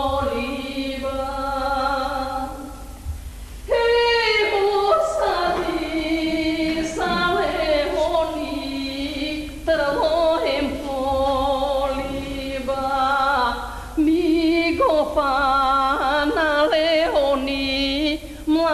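A woman's solo voice singing a Macedonian folk song in long phrases of held, ornamented notes with a wavering vibrato.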